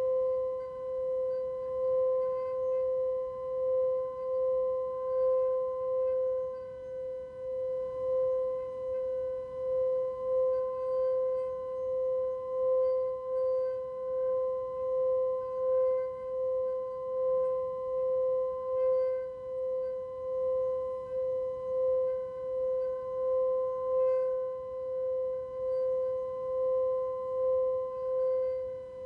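A singing bowl's tone sustained at one steady pitch, gently swelling and fading about once a second.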